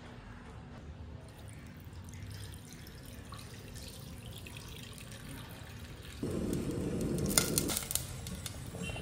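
Liquid running or pouring for about a second and a half, starting about six seconds in, with a few sharp clinks near its end. Before that there is only a low, steady room hum.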